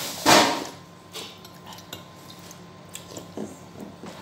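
Dishes clattering at a dinner table: one sharp clatter just after the start, then a few small clinks and knocks.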